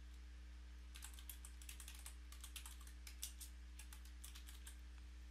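Faint typing on a computer keyboard: a quick run of key clicks starting about a second in and stopping shortly before the end, over a steady low hum.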